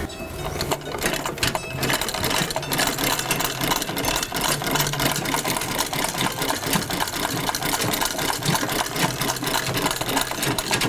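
Foot-powered Singer treadle sewing machine stitching two layers of fabric together, a fast, even clatter of the needle mechanism.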